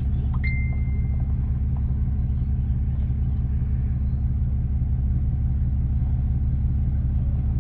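Car engine idling, a steady low rumble heard from inside the cabin, with one brief high tone about half a second in.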